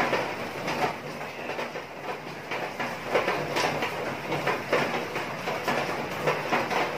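Soda and oyster-sauce braise bubbling and sizzling in a frying pan around a whole chicken as the sauce reduces, with irregular clicks and scrapes of metal tongs and a spatula against the pan as the chicken is turned.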